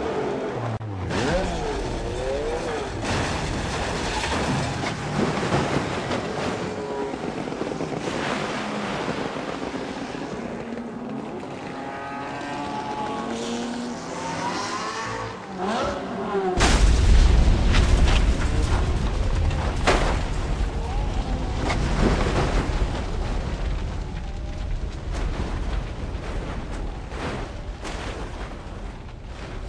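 Race car engines passing at speed in the wet, their pitch gliding up and down as they go by and shift. About sixteen seconds in there is a sudden bang, followed by a loud low rumble that carries on under the engines.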